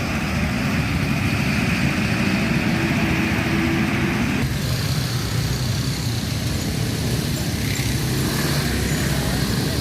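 Motor vehicle engines running close by: a loud, steady low rumble, its higher part changing about four and a half seconds in.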